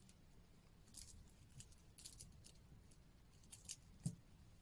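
Faint, scattered light clicks of a titanium watch and its metal bracelet being handled, about seven small ticks spread over a few seconds against near silence.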